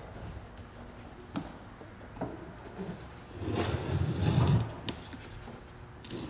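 A windshield-removal tool being handled and positioned against the glass: a few light clicks and knocks, with a longer rubbing noise lasting about a second, starting about three and a half seconds in.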